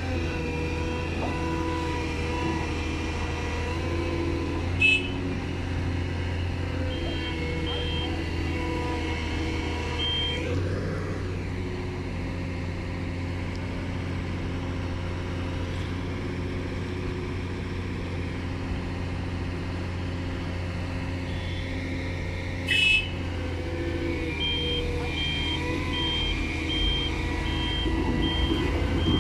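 Heavy diesel engines of a Caterpillar excavator and a loaded dump truck running steadily under load as the excavator's bucket shoves the stuck truck. A reversing alarm beeps about twice a second for a few seconds, stops, and starts again for the last few seconds; two short sharp knocks, one about five seconds in and one a little past the middle.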